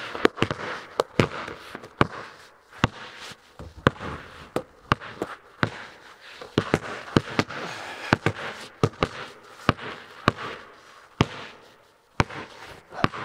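Basketballs being dribbled and bouncing on a concrete floor: a string of irregular sharp thuds, several a second at times, each ringing briefly in a large, bare metal-walled barn.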